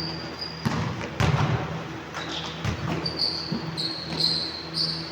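Basketball game on a court: a basketball bouncing in a few irregular thuds, mixed with several short, high-pitched sneaker squeaks.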